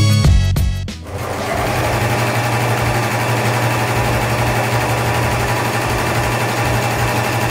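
Background music cuts off about a second in, and an ELNA eXtend EasyCover portable coverstitch machine runs steadily at an even speed.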